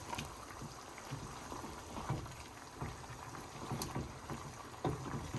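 A pot of food bubbling and simmering on the stove, with a few soft knocks and one sharp click from the pot or a utensil near the end.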